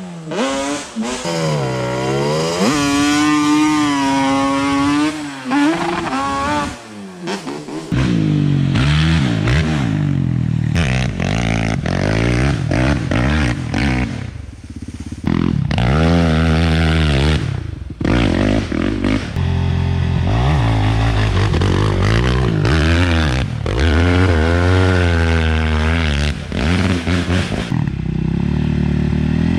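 Quad ATV engines revving hard and easing off as riders climb a steep dirt hill, the engine note rising and falling over and over.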